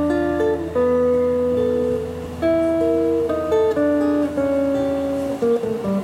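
Acoustic guitar played solo as a song's instrumental introduction: picked chords whose notes start one after another and ring on, with a new chord about every second.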